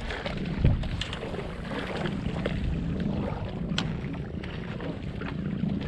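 Steady low rumble with wind on the microphone and a few light clicks.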